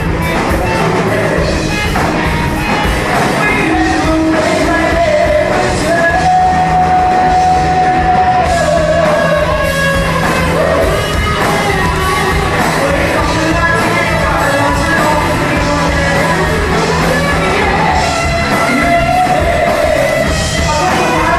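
Live rock band, with drums and electric guitars, playing loudly behind a woman singing the melody, who holds one long note about a third of the way in.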